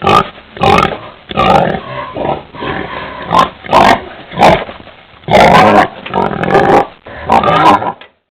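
Pig grunting and squealing: a run of short, loud calls in quick irregular succession, with a few longer squeals near the middle and end.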